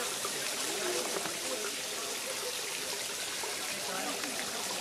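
Shallow water running and trickling over sandstone rock, a steady rushing hiss.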